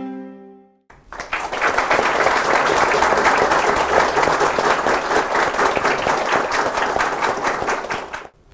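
The last note of a music sting dies away, then a studio audience applauds steadily for about seven seconds, breaking off just before the end.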